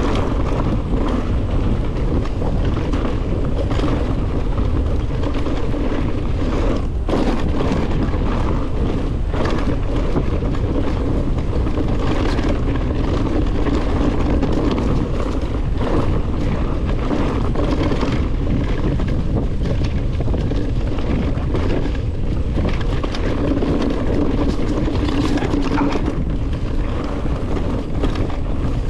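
Electric mountain bike riding over a rough dirt and gravel track: wind rushing over the microphone, with tyres crunching on loose stones and the bike knocking and rattling over bumps throughout.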